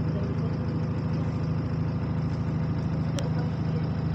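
A bus engine heard from inside the passenger saloon, running with a steady low drone at idle. A single short tick sounds about three seconds in.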